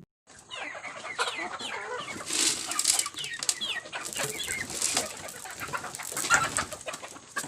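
A flock of backyard chickens clucking and calling over one another, many short rising and falling calls, mixed with scratchy rustling noises. It starts after a short gap of silence.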